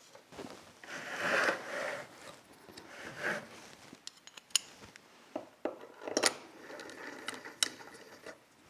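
Metal motor parts being handled on a workbench: a scraping, sliding noise twice in the first few seconds, then a scatter of sharp metallic clicks and clinks.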